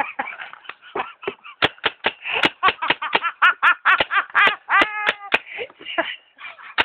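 A woman laughing hard in rapid repeated bursts, with one longer high-pitched note about five seconds in.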